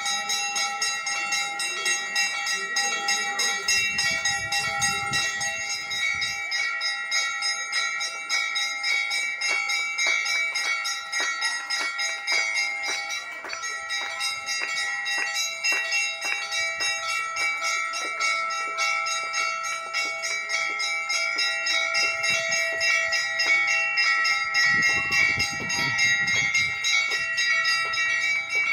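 Temple bells rung rapidly and without pause during the aarti, many ringing tones overlapping into a continuous clangour.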